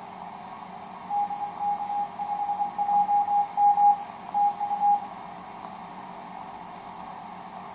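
Morse code (CW) signal from the Easter Island station XR0YG on the 12-metre band, heard through a Yaesu FT-1000MP receiver: a single steady tone keyed in dots and dashes for about four seconds, starting about a second in, over steady band hiss.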